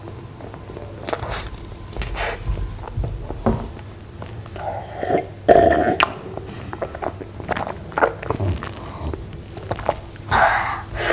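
Close-miked mouth sounds of eating soft cream cake and drinking milk from a glass: wet chewing and smacking, then loud gulping swallows about halfway through, and a louder breathy sound near the end.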